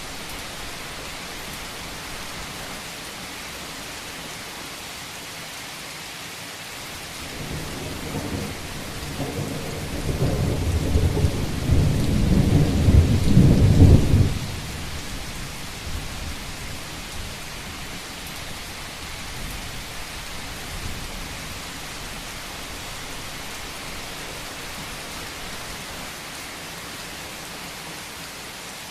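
Steady heavy rain falling on a roof, with a deep rumble of thunder swelling about a quarter of the way in, growing loudest, then cutting off fairly suddenly around the middle.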